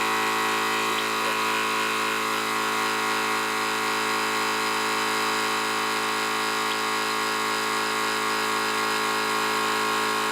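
Thumper Max dual-cylinder 12-volt air compressor running steadily under load, inflating a flat car tyre. It gives a constant, unchanging motor-and-pump hum.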